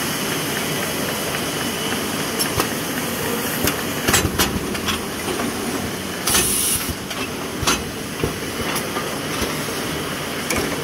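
Palamides Delta 502 automatic banding delivery running, a steady machine noise broken by irregular clacks as it stacks and paper-bands printed products, with a short hiss a little over six seconds in.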